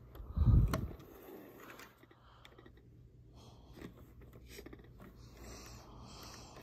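A heavy low thump about half a second in, then an O-scale model steam locomotive (AHM Rivarossi 0-8-0) running slowly with a faint low hum and scattered light clicks of its wheels on the track.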